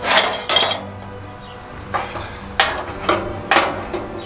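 Steel burner tubes of a Blackstone 36-inch flat-top griddle clanking and scraping against its steel firebox as they are fitted back in: about five sharp metallic knocks, each with a short ring.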